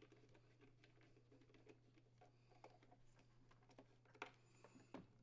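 Near silence: a faint steady low hum with a few scattered faint clicks and taps of hands handling the plastic blower housing and wiring, the clearest about four and five seconds in.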